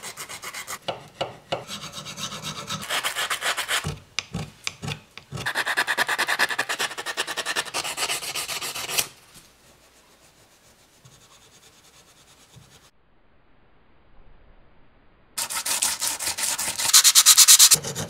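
Hand-sanding a steel knife blade with fine P220 sandpaper: two runs of quick, even back-and-forth rubbing strokes. A long faint stretch of light rubbing with steel wool follows. Near the end a hand file rasps across steel in fast strokes, the loudest part.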